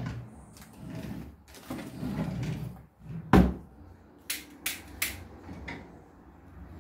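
Kitchen drawer being rummaged through, then pushed shut with a sharp knock about halfway through, followed by a few short sharp clicks.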